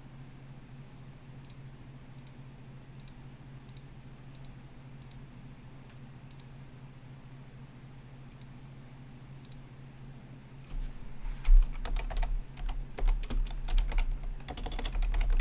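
Computer keyboard: scattered single key clicks, then from about eleven seconds in a fast, loud burst of typing. A faint steady low hum sits underneath.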